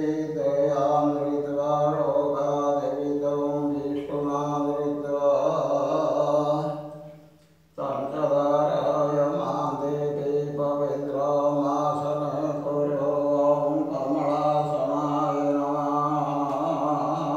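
A mantra chanted over a steady drone, in two long stretches. The first fades away about seven seconds in, and the second starts again abruptly about a second later.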